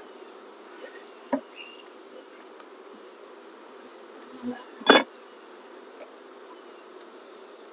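Steady buzzing hum of honey bees from an open hive, with a few sharp knocks of the beekeeper's frame grip and wooden frames, the loudest about five seconds in.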